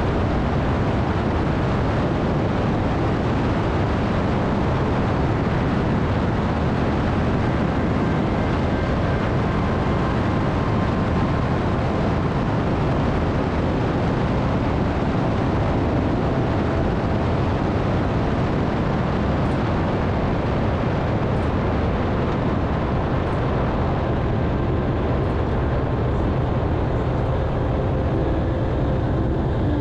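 Harley-Davidson motorcycle cruising at steady road speed: the engine's low, even running sound mixed with a constant rush of wind on the microphone.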